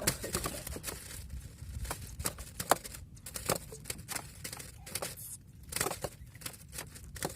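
Rapid, irregular clicks and crinkling rustles over a low steady rumble.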